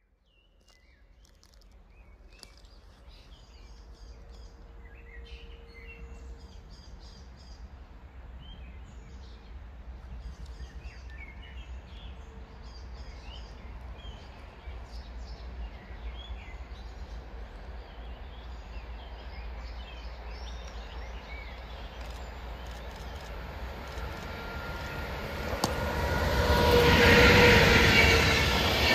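Birds chirping over a low rumble that slowly grows as an electric-hauled passenger train approaches. About 25 seconds in, the Siemens Vectron electric locomotive and its coaches pass close by as a loud rush of wheels on rail, the loudest part of the sound.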